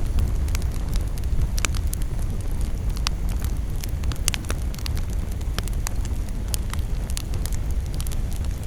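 Wood campfire burning: a steady low rumble with frequent, irregular sharp crackles and pops from the burning wood.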